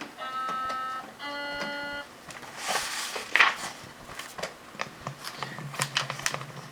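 Two-note cuckoo-clock call, the second note lower, the read-along recording's signal to turn the page. It is followed by about four seconds of paper rustling and light clicks as the page is handled.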